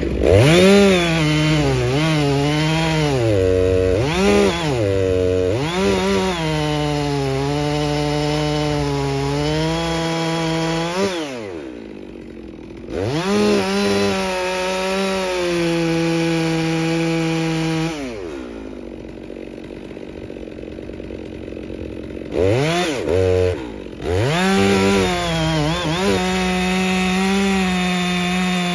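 FarmMac F660 chainsaw, a Stihl 660 clone with a large-displacement two-stroke engine, cutting a big log at full throttle, its pitch sinking and steadying as the chain pulls in the wood. It drops back to idle twice, gets a couple of quick throttle blips, then goes back into the cut near the end.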